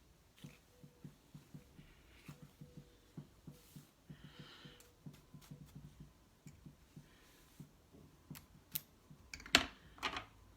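Faint, irregular clicking and soft tapping from hands handling a wig and comb close to the microphone, with two louder sharp clicks near the end.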